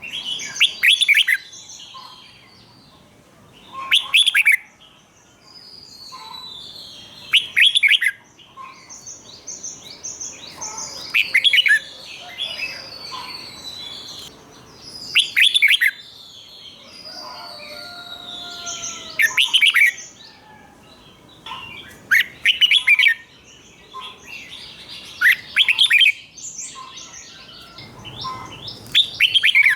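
Red-whiskered bulbul singing loud, short song phrases, repeated about every three to four seconds, with softer chirps and whistles in between.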